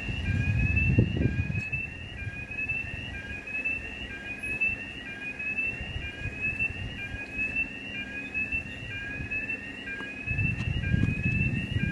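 Repeating electronic warning signal: rising two-tone chirps a little more than once a second, over the steady low hum of an ER9Tm electric multiple unit standing at a platform. Low rumbles swell near the start and again near the end.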